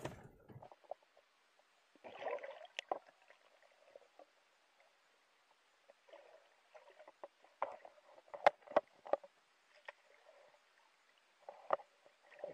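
Faint, muffled water noise from a camera held underwater, with scattered sharp clicks and knocks, several in quick succession a little past the middle.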